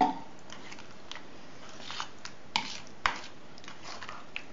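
A fork stirring a wet batter of kefir, egg, ham and grated cheese in a plastic bowl: irregular squelching, with a few sharp taps of the fork against the bowl, the loudest about two and a half and three seconds in.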